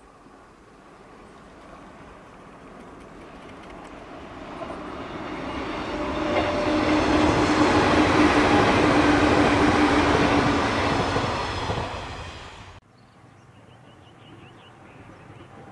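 Passenger train of the Joyful Train Hana, an electric train, approaching and running past close by. Its noise grows for several seconds and peaks as the cars go by, with a steady tone through the loudest part. It is cut off abruptly near the end and gives way to the faint sound of a distant train.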